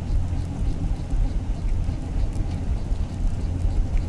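A boat's motor running steadily, giving a low, even drone.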